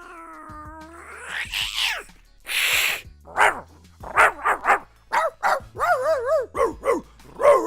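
A man imitating sounds with his voice: a wavering hum, a whooshing sweep and a short hiss, then a quick run of imitated dog barks and yelps.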